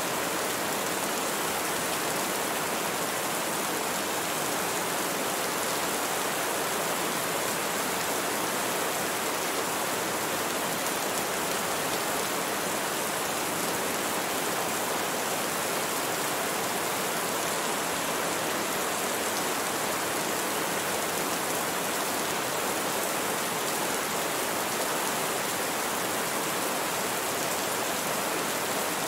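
Steady rain falling: an even, unbroken hiss of raindrops with no thunder.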